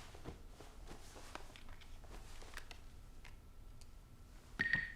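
Faint scattered clicks and taps, then near the end a short, high electronic tone from a phone's messaging app: an incoming message alert.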